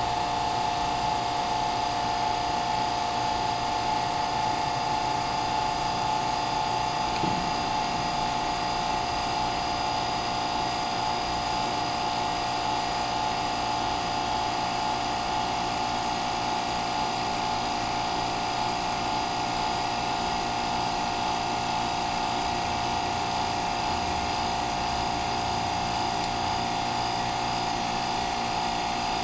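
Electric hydraulic pump of a concrete compression testing machine running steadily with an even whine while it loads a concrete cylinder, before the cylinder breaks.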